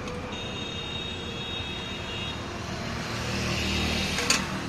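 Passing road traffic, with a vehicle's engine rumble swelling by about three to four seconds in. A faint high steady whine sounds for the first two seconds, and there is one short sharp knock near the end.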